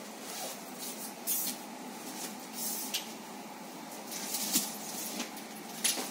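Rustling of a saree's fabric as it is handled and spread out, coming in several short bursts.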